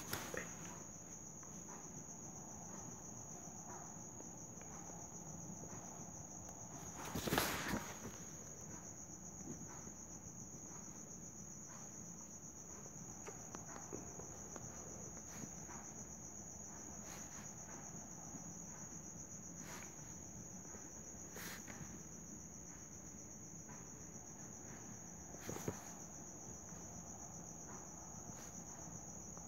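A cricket's steady high-pitched trill, with a few knocks, the loudest about seven seconds in.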